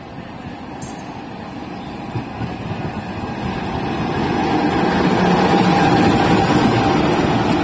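CC206 diesel-electric locomotive running light past at low speed, its engine growing steadily louder as it draws near and loudest as it goes by, about two-thirds of the way in.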